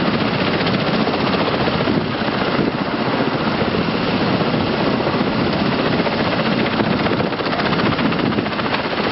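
Loud, steady engine noise of aircraft running on a ship's flight deck, an even wash that does not change.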